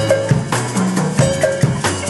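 An Afro marimba band playing: wooden marimba notes struck with mallets over a drum kit's steady beat of kick, snare and cymbals.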